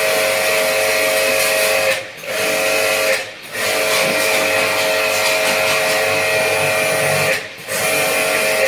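Electric jet pump (pressure washer) running and spraying a jet of water into a split AC indoor unit: a steady hiss over the pump's motor whine. It cuts out briefly three times as the spray-gun trigger is let go, about two, three and seven and a half seconds in.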